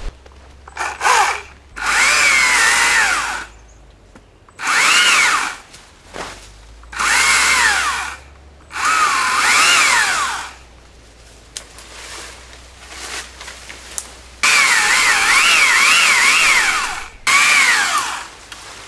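Gas chainsaw cutting down small saplings, throttled up in about seven loud bursts with its pitch rising and sagging as it cuts, and dropping back to a low idle in between.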